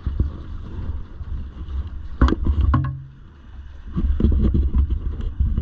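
Drag boat on the water: a low rumble with irregular thumps, a sharp knock about two seconds in, then a brief lull before the rumble picks up again.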